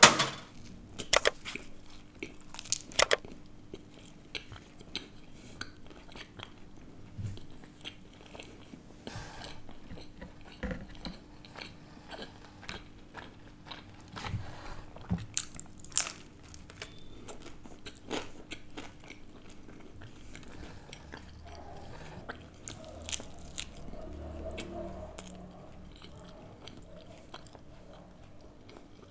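Close-miked biting and chewing of greasy thin-crust margherita pizza, the crisp crust crunching. The sharpest, loudest crunches come in the first few seconds, with scattered softer crunches and chewing after that.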